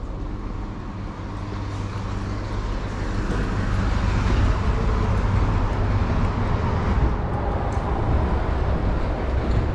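Steady background noise of road traffic with a low rumble, getting a little louder after about three seconds.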